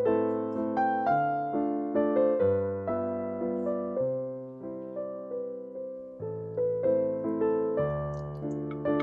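Background piano music: a gentle melody of struck notes, each fading away, over lower bass notes.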